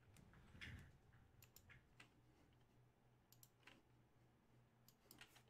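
Near silence with a dozen or so faint, unevenly spaced clicks.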